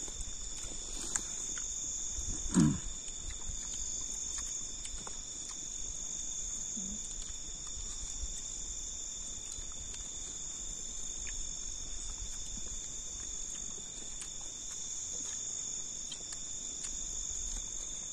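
Steady night-time chorus of insects in the forest: a continuous high-pitched trilling with two unchanging tones. About two and a half seconds in there is one short low sound, and a few faint clicks.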